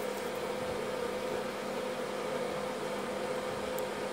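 A steady mechanical hum with a held tone, and a faint small click near the end.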